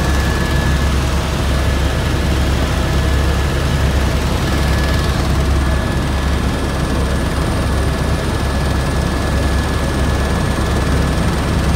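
Helicopter in flight heard from inside the cabin: a steady, loud, deep drone of rotor and engine, with a thin steady whine held on one pitch above it.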